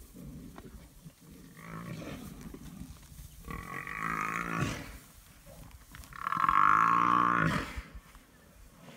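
African buffalo bellowing in distress under attack by lions: a weaker call about two seconds in, then two long, drawn-out bellows, the second and loudest starting about six seconds in.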